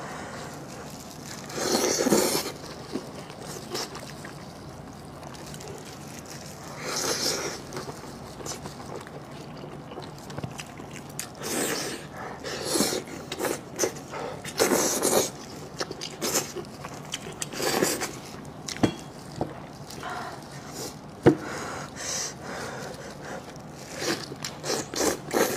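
A person eating sheep's head close to the microphone: wet slurping and sucking in short bursts every few seconds, with lip smacks and chewing clicks between them.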